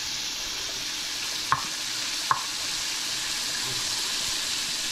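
Chunks of longnose gar sizzling steadily in butter in a hot skillet, with two sharp clicks of the spatula against the pan about a second and a half in and a moment later as the pieces are moved.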